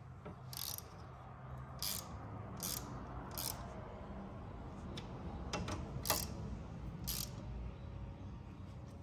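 Hand ratchet clicking in short strokes as the nuts on the radiator's top bracket and rubber isolators are snugged down, about seven bursts spaced a second or so apart. A steady low hum from a shop fan runs underneath.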